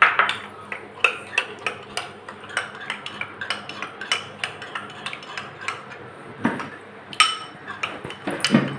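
Spoon clinking and scraping against a small glass bowl while stirring cornflour into water to make a slurry, with sharp irregular clicks several times a second and one louder ringing clink about seven seconds in.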